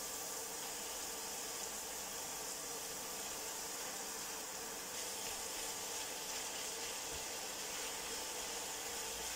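Steady hiss of onions and ground meat frying in a hot wok.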